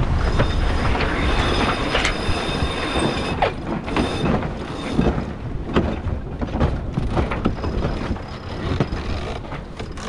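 Wind buffeting the microphone over the rush of water past a sailing yacht's hull, with repeated sharp clicks and knocks from the sails, rigging and deck gear as the boat tacks.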